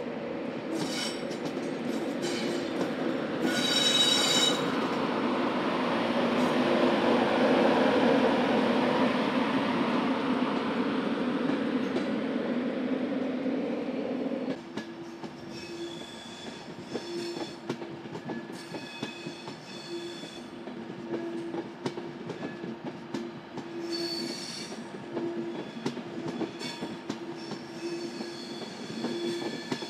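A Class 91 electric locomotive and its coaches run past over curved track, a steady rolling rumble and hum with the wheels squealing against the rails in repeated high-pitched bursts. The rumble drops suddenly about halfway through, leaving the flange squeal and a lighter hum.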